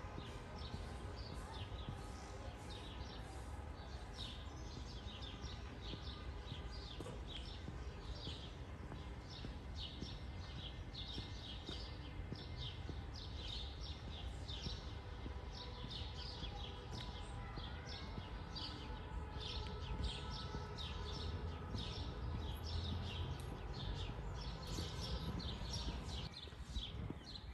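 Birds singing, a dense run of quick chirps and short phrases, over a steady low background rumble of the town.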